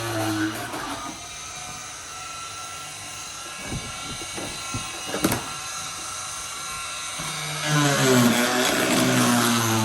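Background music with sustained notes that shift in pitch, dropping quieter through the middle, where a few sharp knocks sound about four to five seconds in.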